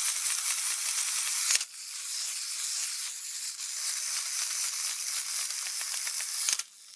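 Clockwork motor of a plastic wind-up polar bear toy running, a dense whirring with fast fine ticking as it walks and rolls its ball along the floor. The sound drops in level about one and a half seconds in and cuts off near the end.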